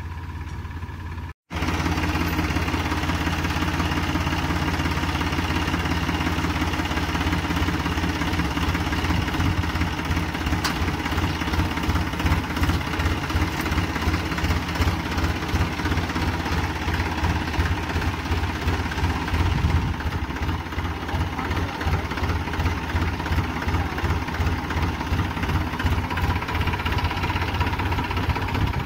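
Diesel tractor engine running steadily with a fast, pulsing throb while it works a front-mounted crane boom. The sound drops out for an instant about a second and a half in.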